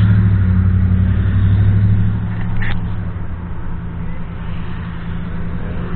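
Dodge Ram pickup's engine and exhaust droning loud and low inside the cab, easing off about two seconds in, with a short squeak a little under three seconds in. The owner finds the truck so loud that he calls it a bad sound.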